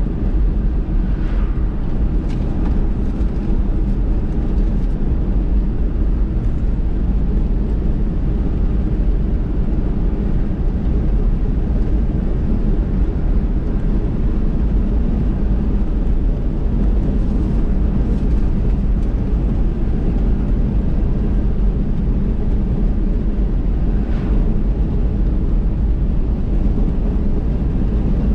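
Vehicle driving along a road: a steady low rumble of engine and tyre noise that holds an even level throughout.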